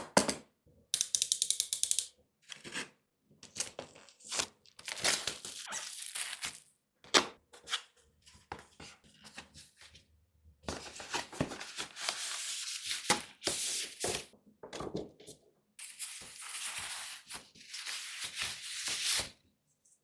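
Headphone packaging being opened and handled: a rapid run of ticks about a second in, like a seal or tear strip coming away, then cardboard and plastic packaging sliding and rustling in several long stretches, with scattered taps and light thumps.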